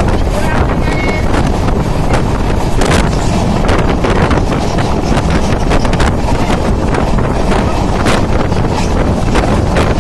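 A passenger train running at speed, heard from an open window: a steady rumble from wheels and track, with wind buffeting the microphone and a few sharp clacks.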